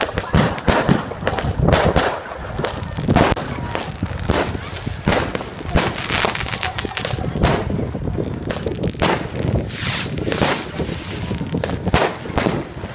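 Fireworks and firecrackers going off: a dense run of bangs and cracks at irregular intervals, several a second, over a continuous crackling background.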